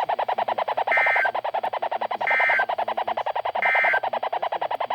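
Weather radio receiver playing the three short warbling EAS digital data bursts (the end-of-message code) about a second and a half apart. Under them runs a steady rapid buzzing pulse of about a dozen beats a second on the station's audio, heard as squeaky.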